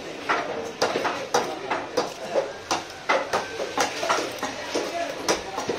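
Fish being cut on wooden blocks at a market stall: sharp, irregular knocks and clinks of blades and fish on wood, roughly two a second.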